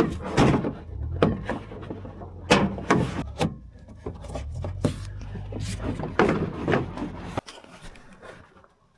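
Knocks, bumps and scraping as a long cardboard sono tube is handled and slid into a pickup truck bed, over a low steady hum that cuts off about seven and a half seconds in.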